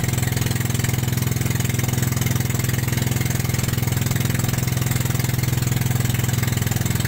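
Engine of a small motorized outrigger fishing boat running steadily under way: an even, unchanging low hum.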